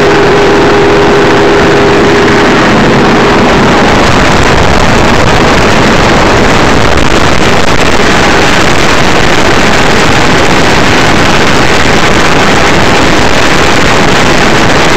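Honda four-stroke outboard driving a bass boat at speed, heard as a loud, steady rush of engine, water and wind. A steady engine hum stands out for the first few seconds, then blends into the rush.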